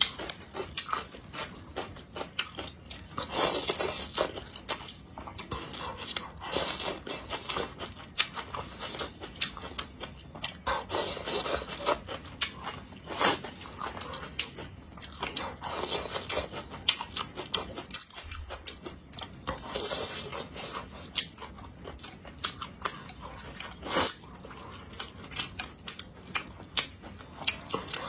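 Close-miked eating: chewing and slurping rice noodles in spicy soup, with wet mouth clicks and louder slurps every few seconds.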